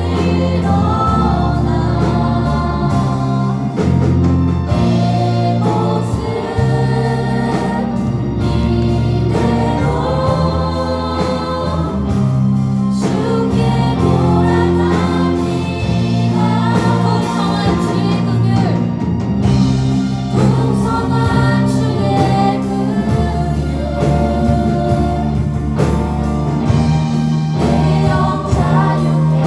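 A choir singing a praise and worship song over a band with a steady bass line.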